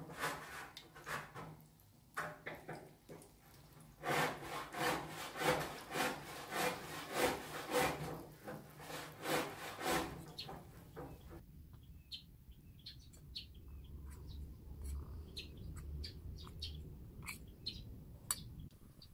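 A metal fork scraping and knocking against a dish in steady strokes, about two a second, as batter is stirred. Later the sound turns quieter, with scattered small clicks and pops.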